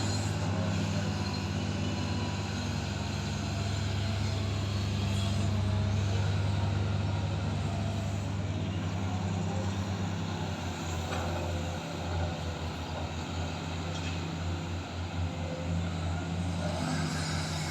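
Diesel engine of heavy earthmoving machinery running steadily, its low note turning uneven in the second half.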